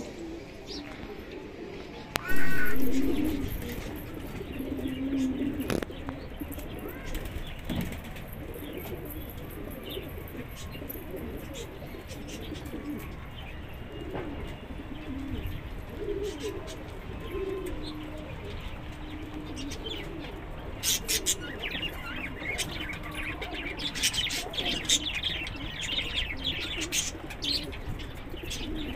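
Domestic pigeons cooing low and repeatedly. A single loud, short call comes about two seconds in, and in the last third there is a flurry of wing flapping and chirping as birds take flight.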